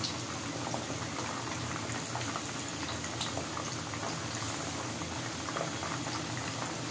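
Chicken kandi pieces deep-frying in hot oil on high heat: a steady sizzle and bubbling, with scattered small crackling pops.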